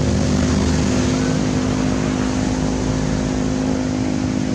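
A motor engine running steadily at an even pitch.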